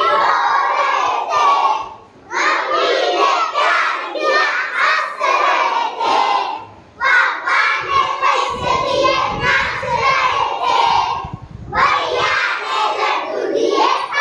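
A class of young children chanting a Hindi nursery rhyme together at the top of their voices, in loud shouted phrases with a short breath about every five seconds.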